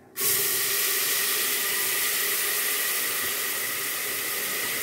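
Wet ground onion, ginger and garlic masala paste dropped into hot spiced oil in an aluminium pressure cooker: a loud sizzle breaks out all at once just after the start and carries on as a steady hiss.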